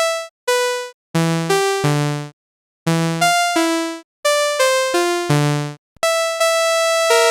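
Homemade software synthesizer playing short runs of pitched notes, each fading quickly, with brief pauses between the runs. About six seconds in, a held high note starts and the notes carry on without a gap.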